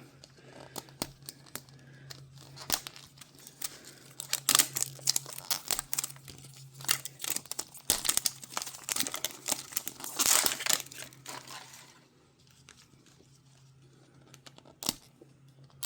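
Plastic wrapper being torn off a Mini Brands capsule ball by its tear strip: a long run of crinkling and crackling that dies away about twelve seconds in, with one sharp click near the end.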